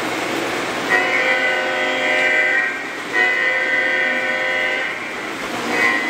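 Model train sound system sounding a diesel-style train horn over the steady running noise of the train on the track: two long blasts of about two seconds each, then a short one near the end.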